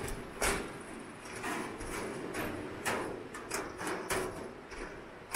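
Footsteps knocking on the steel grating deck of a suspension footbridge, a sharp knock roughly every half second, unevenly spaced.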